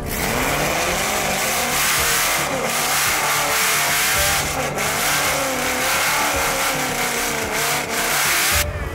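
Loud race-car engines revving and accelerating hard, the engine pitch rising and falling, with tyre noise.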